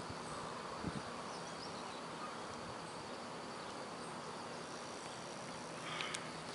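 Steady outdoor background: an even hiss with a faint thin high hum like insects, a soft knock about a second in and a brief rustle near the end.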